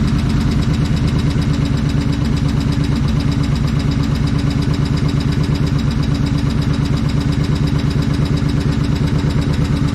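2005 Suzuki Boulevard C90's V-twin engine idling steadily with an even pulse, running on a newly fitted stator and regulator/rectifier while its charging system is checked.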